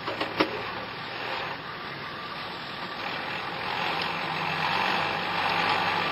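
A 4WD's engine running, heard from inside the cab, with a couple of sharp knocks about half a second in; the engine noise grows a little louder after about three seconds.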